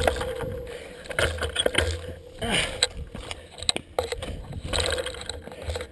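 Wind rumbling on the handlebar-mounted camera's microphone, with scattered knocks and scrapes as a hand handles the camera and bars.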